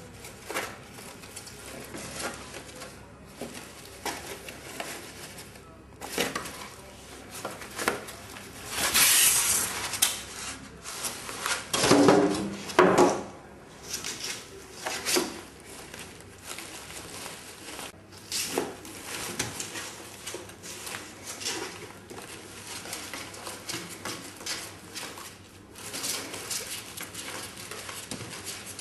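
Irregular clattering and rattling of small hard objects, with many scattered clicks and a louder stretch of rattling near the middle.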